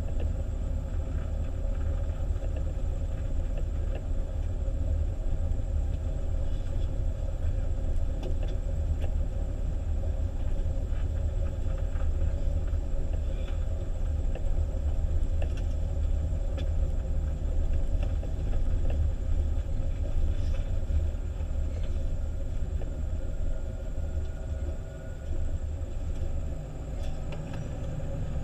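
Fire engine driving on an icy, snow-covered road: a steady low rumble of engine and tyres, with no siren.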